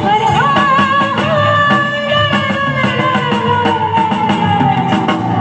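Background music in a South Asian or Middle Eastern style: one long held melodic note slides slowly downward in pitch over a steady rhythmic backing.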